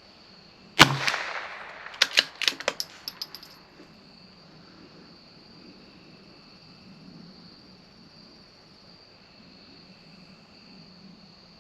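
A single shot from a CZ 457 .22 LR bolt-action rifle about a second in, with a short fading tail. A second later comes a run of light metallic clicks and ticks that come closer and closer together, then stop. Crickets chirp steadily throughout.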